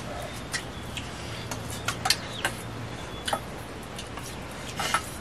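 Spoons clinking and scraping against steel plates while people eat: sharp, irregular clicks every half second or so.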